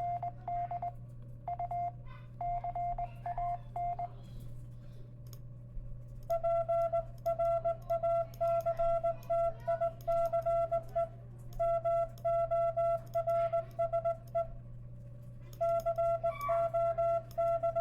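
Morse code (CW) sidetone from the vBand web Morse site: a single steady mid-pitched beep keyed on and off in dots and dashes, in runs with short pauses between, over a steady low hum.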